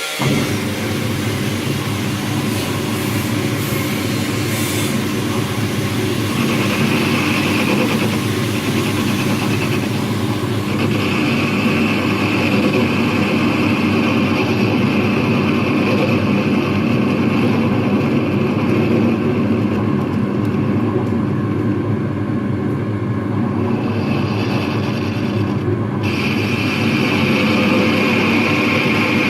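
A workshop machine's motor running steadily after spinning up, with a higher whine that comes and goes several times.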